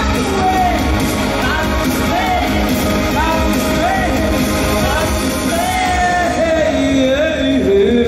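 Synth-pop band playing live: synthesizers and a steady electronic beat under a lead vocal singing a gliding melody into a handheld microphone.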